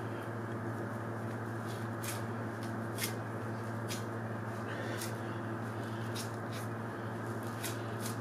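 Butchering knife working through the meat and membranes of a hanging deer carcass: soft, irregular ticks and rustles of the blade and handling, over a steady low hum.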